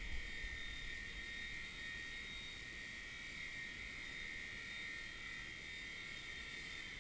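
WLtoys V911 micro RC helicopter's small electric motors and rotors whining steadily in a hover, a high-pitched buzz that carries on as the helicopter sinks low toward the end.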